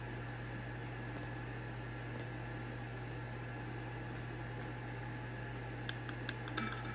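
Steady low hum with an even hiss: room tone. A few light clicks come near the end.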